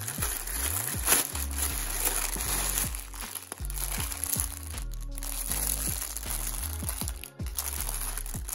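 Thin plastic packaging crinkling as hands tear open a poly mailer and handle the clear plastic bag inside. Background music with low bass notes plays under it.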